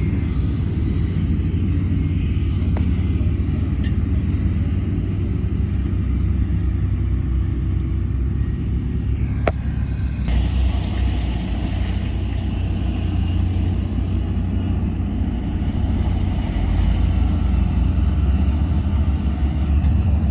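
Heavy construction machinery's diesel engines running steadily, with a deep low-pitched drone. There is a sharp knock about halfway through, after which a brighter mechanical noise joins in.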